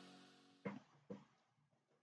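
The held final chord of an advert's background music fading out, then near silence broken by two faint short clicks about half a second apart.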